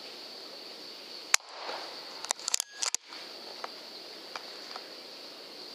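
A steady high hiss broken by sharp clicks: a single one about a second and a half in, then a quick cluster of them with brief dropouts between two and a half and three seconds.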